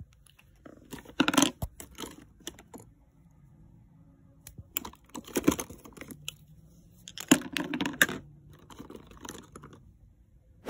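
Plastic makeup tubes, lipstick cases and compacts clicking and clattering against each other as hands rummage through a cosmetics case. The clicks come in three short flurries with quiet gaps between.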